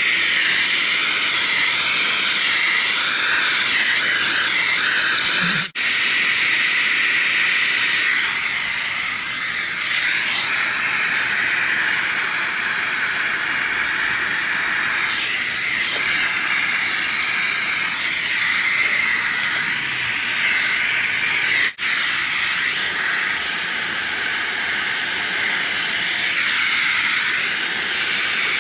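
Steady hiss of a brazing torch flame heating a soldered copper pipe fitting to unsweat it.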